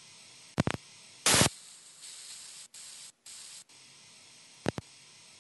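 Steady hiss of recording static, broken by a couple of sharp clicks under a second in and again near the end, a short loud burst of hiss about a second in, and two brief dropouts to silence near the middle.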